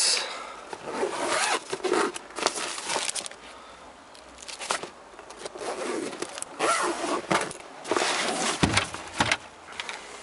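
Zipper on a fabric tool bag being pulled along in several separate runs, the longest about two seconds, with a knock near the end as the bag is handled.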